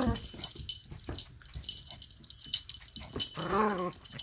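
Two dogs play-fighting on a hardwood floor, a small Yorkshire terrier mix and a German Shepherd: scattered clicks and knocks of scuffling, then one drawn-out dog call that rises and falls in pitch near the end.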